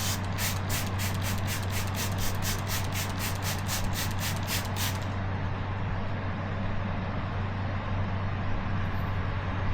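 Handheld gas torch burning with a steady hiss while it heats the inflator for brazing with aluminum repair rod. For the first five seconds there is also a quick scratching, about four strokes a second, which then stops.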